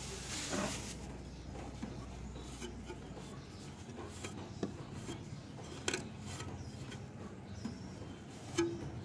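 A cloth rubbing and wiping against the metal and plastic parts inside a window-type air conditioner, around the fan motor, with a few short knocks and clicks scattered through.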